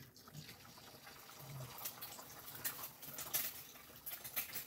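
Egg frying in oil in a frying pan over a gas flame, a steady sizzle with scattered crackles.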